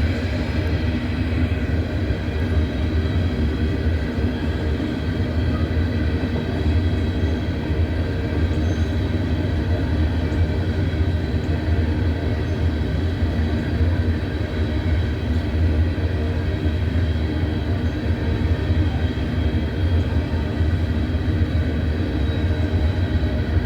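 Freight train cars rolling past close by: a steady low rumble of wheels on rail, with faint steady ringing tones above it.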